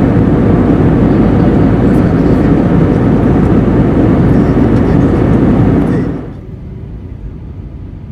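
Steady rushing cabin noise of an Airbus A320 in flight, heard inside the cabin. About six seconds in it drops suddenly to a quieter, steady hum.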